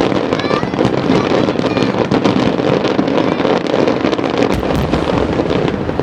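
Fireworks going off in a dense, continuous barrage of crackling bursts and bangs.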